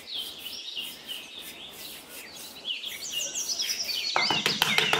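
Small birds chirping and twittering throughout. About four seconds in, quick sharp taps begin, several a second and louder than the birds: a small metal garden trowel patting the sand.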